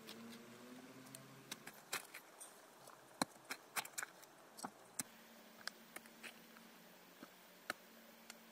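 A hoe chopping and scraping into soil: scattered sharp knocks and scrapes at an uneven pace, over a faint steady low hum.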